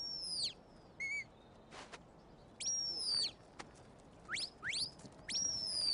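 A sheepdog handler's whistle commands to a working sheepdog: a run of sharp, high whistles, each rising quickly and then sliding down, the last one held longest, directing the dog as it brings the sheep.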